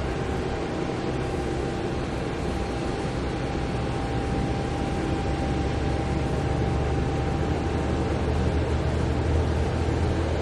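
Stealth bomber sound effect: a steady jet-engine rumble, heaviest in the low end, growing slightly louder toward the end. A faint thin tone runs through it and fades out about eight seconds in.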